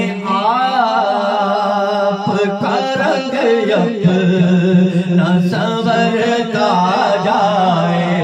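A man singing an Urdu devotional naat through a microphone in long, ornamented, wavering phrases, over a steady low drone that holds throughout.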